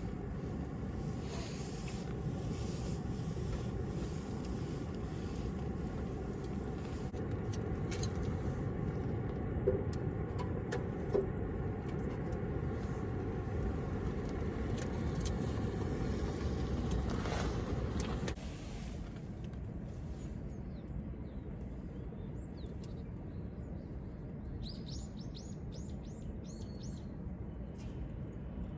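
A car engine running steadily with a low rumble, cutting off abruptly about eighteen seconds in. Small birds chirp near the end.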